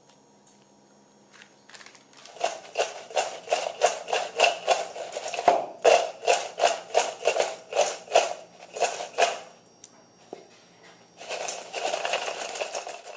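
Crisp fried potato sticks shaken in a stainless steel mixing bowl to coat them in seasoning powder. The fries rattle and slide against the metal in rhythmic shakes, about three a second. After a pause, a shorter stretch of continuous rattling comes near the end.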